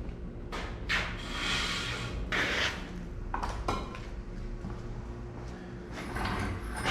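Several knocks, scrapes and clatters of things being handled, over a steady low hum.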